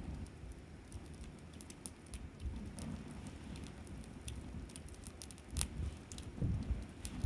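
Wood campfire crackling: irregular sharp pops and snaps of burning wood over a low, uneven rumble.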